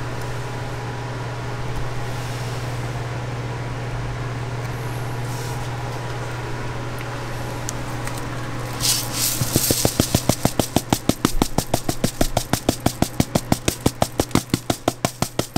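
A steady low electrical hum of kitchen equipment. From about nine seconds in, a container of rainbow sprinkles is shaken quickly and evenly, about six rattling shakes a second, as sprinkles are scattered over a chocolate-dipped waffle.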